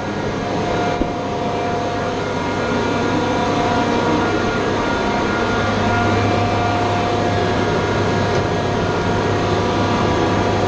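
Generator set engine running steadily: a constant low drone with faint steady whining tones above it.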